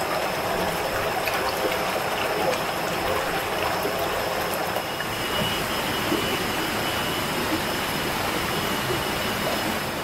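Shallow forest stream running steadily over rocks, an even rushing water noise. A thin steady high tone sits over it, and a second, lower tone joins about halfway through; both stop shortly before the end.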